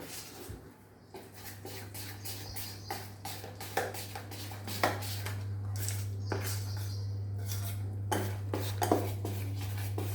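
A spoon stirring and beating thick ragi-flour and banana batter in a bowl, with repeated scrapes and clinks of the spoon against the bowl's side.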